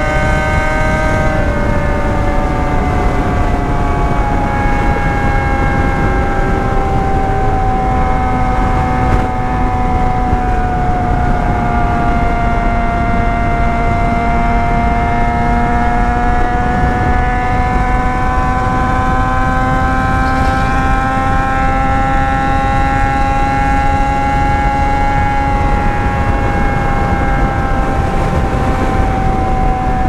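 Motorcycle engine running at a steady cruise, its pitch drifting slowly down and then back up, under a constant rush of wind noise.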